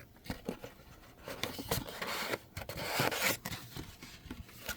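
Scraping, rubbing and rustling of a sealed trading-card box being handled and opened, with scattered small clicks and a longer rustle about halfway through.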